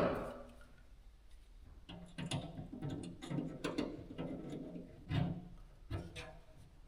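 Adjustable wrench working the mounting nut of a Willys MB headlight switch as it is tightened: a sharp knock at the start, then scattered small metallic clicks and taps.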